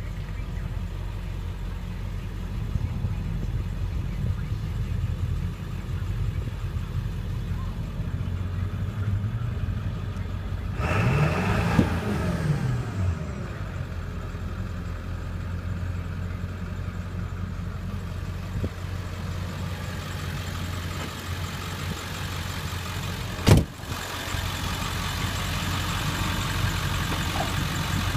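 Ford 7.3 Powerstroke V8 turbo diesel idling steadily, heard from inside the truck's cab. Just under halfway through it is revved once, its pitch rising and falling back to idle within about two seconds. Later a single sharp knock cuts through.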